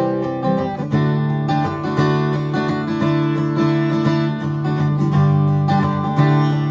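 StewMac kit-built replica of a pre-war 1937 Martin D-28 steel-string dreadnought acoustic guitar being played, a quick run of strummed and picked notes with chords ringing on between strokes.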